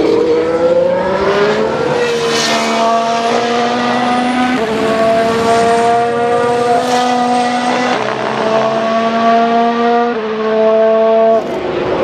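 Formula 1 car's 1.6-litre turbocharged V6 hybrid engine accelerating hard out of a corner and running up through the gears, each upshift a sudden drop in pitch. The sound falls off abruptly near the end.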